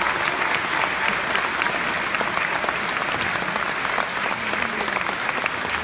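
Theatre audience applauding at a ballet curtain call, many hands clapping at a steady level.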